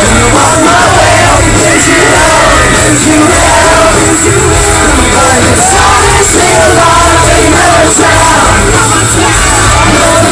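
A live rock band playing loudly through a PA, with a singer and a steady heavy bass, and the crowd yelling along.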